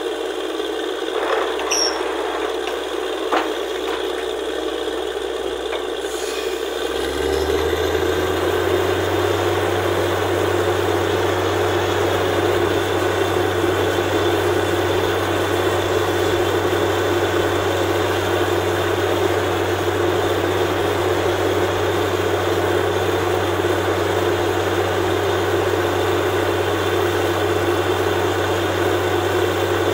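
Borewell drilling rig machinery running steadily, with a rattling, grinding noise. A low steady hum joins about seven seconds in, and the sound grows a little louder.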